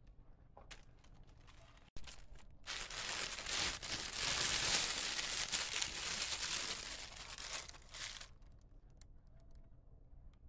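Clear plastic bag crinkling loudly as a hand pulls it off a cat's head, for about six seconds, starting a couple of seconds in.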